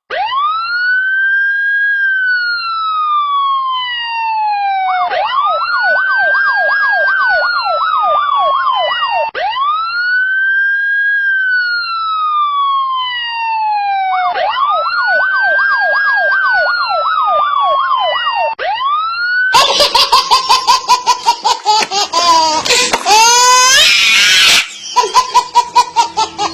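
Police-style siren sound, cycling between a slow wail that rises and then falls over several seconds and a fast yelping warble. After about 19 seconds it gives way to a much louder, harsh, distorted-sounding passage of rapid stuttering pulses and sweeping pitch glides.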